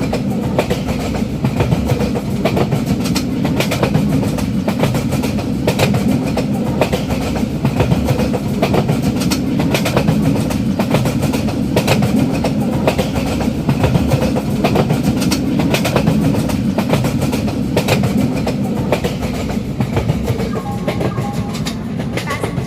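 Railway train running along the track: a steady heavy rumble with repeated clicks of the wheels over rail joints.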